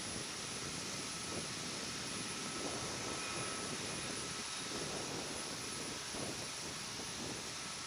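Steady jet aircraft engine noise, an even rushing sound with no clear changes.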